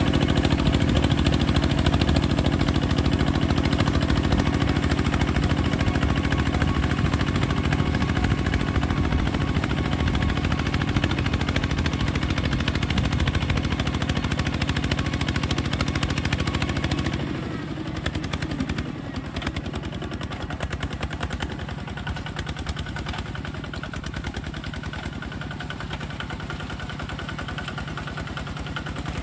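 Small bulldozer's engine running with a rapid, even clatter; it drops to a quieter, lower note about two-thirds of the way through.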